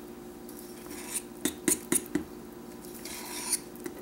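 A metal spoon mixing extra flour into pancake batter in a stainless steel bowl, clinking and scraping against the bowl several times from about a second in.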